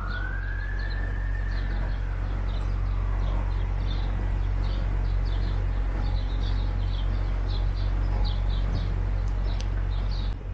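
A boat motor drones steadily and low. An emergency siren's wail rises in the first second and fades away by about three seconds in. Birds chirp in short repeated calls throughout.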